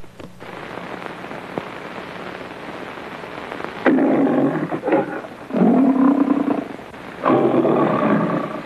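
MGM logo lion roaring three times, each roar about a second long, starting about four seconds in. Before the roars there is only the steady hiss of an old optical film soundtrack.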